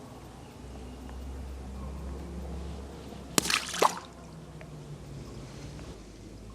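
Water splashing and dripping, with two quick splashes a little past halfway, over a low steady hum.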